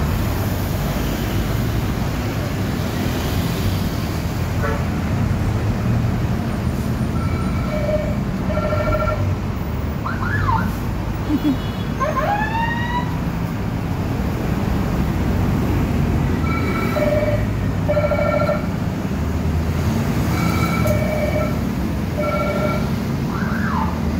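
Heavy bus and motorbike traffic idling and creeping in a jam, with multi-tone bus horns sounding in pairs of short blasts three times. Rising siren-like whoops sound in the middle.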